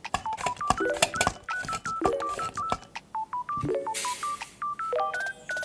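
A quick run of short electronic beeps that jump between pitches, like keypad tones, with sharp clicks and taps among them.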